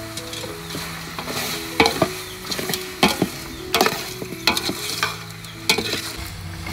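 A long metal ladle stirring chunks of raw fish in a large aluminium stockpot, knocking and scraping against the pot about once a second.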